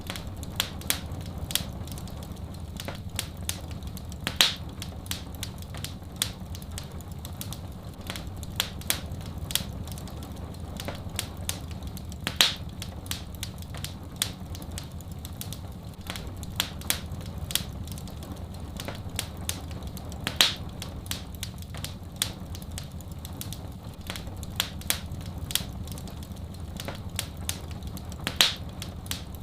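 Wood fire crackling: a dense run of small sharp snaps with a louder pop about every eight seconds, over a steady low rumble.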